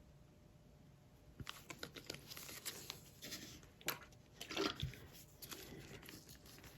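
Quiet, irregular clicks, taps and crinkly scraping from paint-mixing supplies being handled, starting about a second and a half in.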